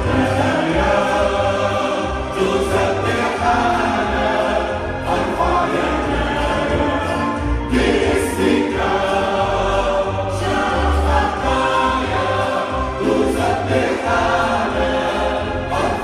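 Church worship team singing a praise song together, men's and women's voices over an electronic keyboard with steady low bass notes.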